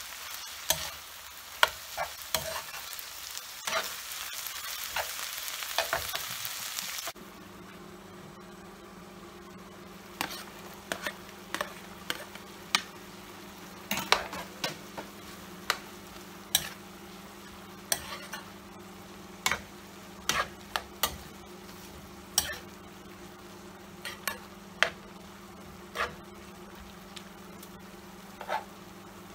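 Prawns, chicken and vegetables sizzling in a frying pan as they are stir-fried, with a spatula clicking and scraping against the pan. About seven seconds in, the sizzle cuts off suddenly, leaving a steady low hum under irregular spatula strikes.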